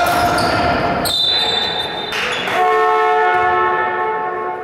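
Basketball game in a large hall: a ball bouncing on the court amid short high squeaks, and a horn sounding steadily for about two seconds in the second half.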